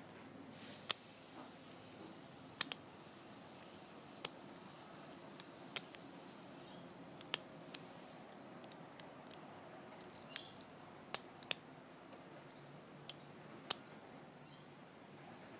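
Irregular sharp metallic clicks of a lock pick working the pin stack of a Squire Leopard LP10 brass padlock under tension, about sixteen, some in quick pairs, with a brief hiss about half a second in.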